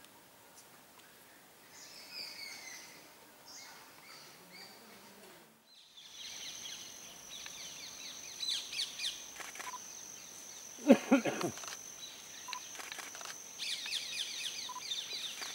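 Forest ambience: scattered bird chirps, then from about six seconds in a steady high-pitched insect drone under many quick bird chirps. About eleven seconds in there is one loud, short call, lower in pitch than everything else.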